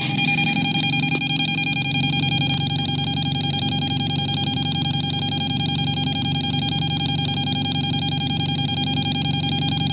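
Handheld EMF meter's alarm sounding a steady high-pitched tone, its needle pegged past the top of its scale by the strong field from overhead high-voltage power lines. A steady low road and engine rumble from inside the moving car lies under it.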